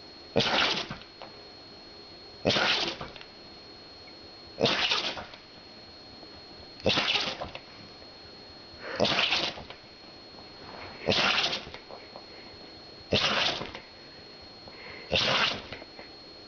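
A dog sneezing over and over, one short sharp sneeze about every two seconds, eight in all.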